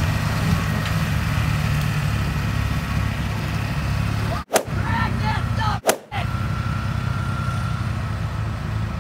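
Diesel pickup engines, a lifted Duramax V8 towing a stuck Ford 7.3 Powerstroke, running hard under load during the recovery pull. Two sudden sharp cracks cut in, about four and a half and six seconds in.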